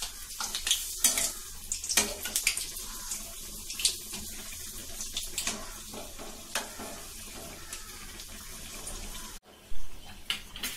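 Bondas deep-frying in hot groundnut oil in a metal kadai: a steady sizzle, with a metal spoon clicking and scraping against the pan as they are turned. The sound drops out briefly near the end.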